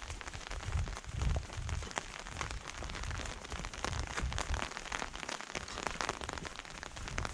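A hiker's footsteps on a wet gravel-and-dirt forest trail: a dull thud with each stride, about twice a second, over a dense fine crackle of grit and wet ground.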